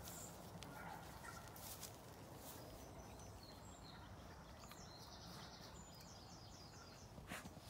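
Faint outdoor ambience with a small bird singing a quick run of repeated high notes about halfway through, and a few soft clicks close by.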